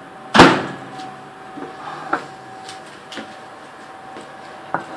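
Kitchen handling sounds: one loud sharp knock about half a second in, then a few light clicks and taps, over a faint steady hum.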